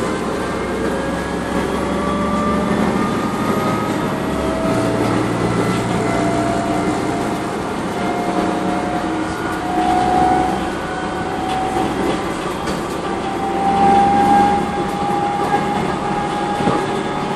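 Transit bus heard from inside the cabin while under way: the Voith automatic transmission's gear whine rises slowly and steadily in pitch as the bus gathers speed, over the rumble of the engine and the road. A few sharp rattles come near the end.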